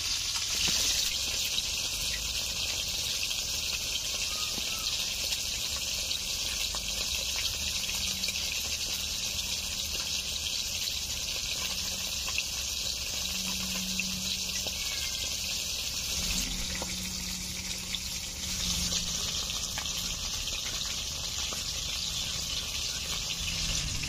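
Pieces of rohu fish frying in hot mustard oil in a kadai: a steady sizzle.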